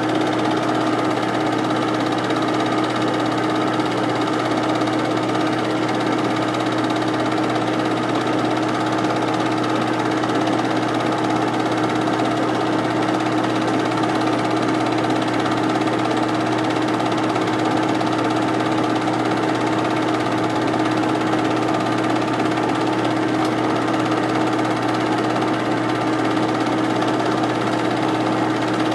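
8mm film projector running steadily: a constant mechanical whir and hum that holds one pitch throughout.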